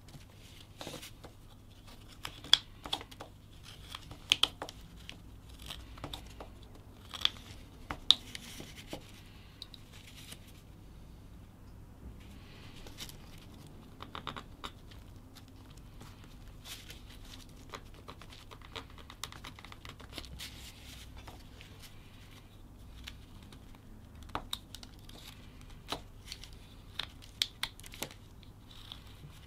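Whittling knife cutting across the grain of a small wooden block: irregular crisp clicks and short slicing scrapes as chips are cut and broken away.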